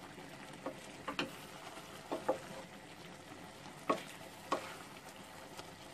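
Wooden spoon stirring sliced mushrooms in a stainless steel pot, with a few short knocks and scrapes of the spoon against the pot, over a faint steady sizzle as the mushrooms simmer in their own released juice.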